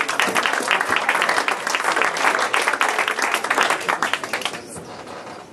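Audience applauding with many hands clapping, dying away in the last second or so.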